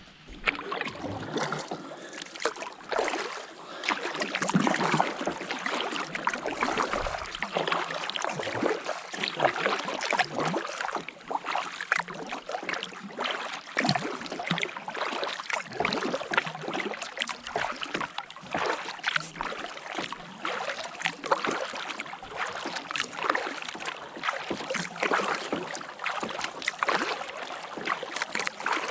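Kayak being paddled on a lake: paddle blades dipping and splashing, with water dripping and gurgling in many small irregular splashes throughout.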